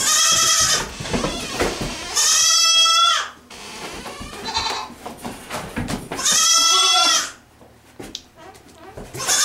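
Goats bleating: three loud, wavering bleats of about a second each, one right at the start, one around two and a half seconds in and one around six and a half seconds in.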